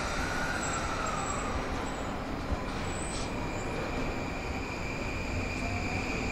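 E235-series electric train at the platform starting to move off: a steady rumble with a thin high whine from its traction equipment, and a tone that climbs in pitch near the end.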